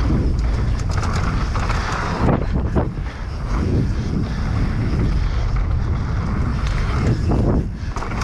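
Wind buffeting the microphone on a fast downhill mountain-bike run, with the tyres rolling over the dirt trail and the Specialized Demo downhill bike clattering over bumps in many short knocks. The noise dips briefly near the end.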